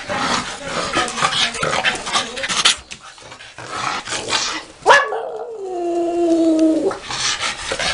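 Small dog barking and yipping in quick succession, then, about five seconds in, one long whine that jumps up and then sinks slowly over about two seconds.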